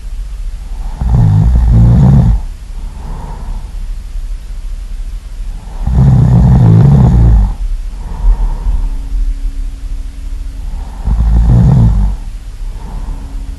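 Really loud snoring: three long snores about five seconds apart, each about a second and a half, with softer breaths between them.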